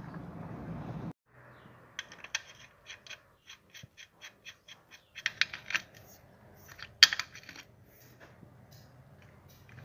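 Small metallic clicks and clinks from a new drain plug washer and an oil-pan drain plug being threaded in and tightened with a T-handle socket wrench. There is a run of evenly spaced ticks at about four a second, then a louder cluster, and one sharp clink about seven seconds in. Before that, a low hum cuts off about a second in.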